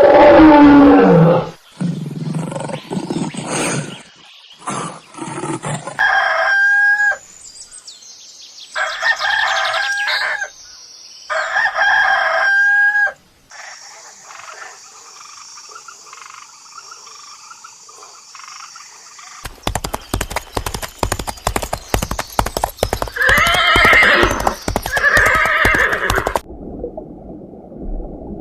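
A run of separate animal-call sound effects played one after another, with abrupt cuts between them. One pitched call repeats three times about three seconds apart, and near the end a clattering stretch carries further calls.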